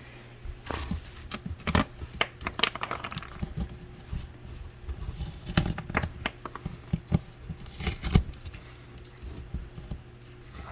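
Handling noises from a homemade cardboard BB catcher with padding: irregular rustling, crinkling, scraping and knocks as the box and its layers are moved and pulled about.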